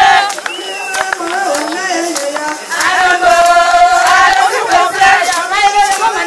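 A group of women singing together in unison, holding long notes. The singing breaks off just after the start into scattered voices and calls, then the group picks the song up again about halfway through.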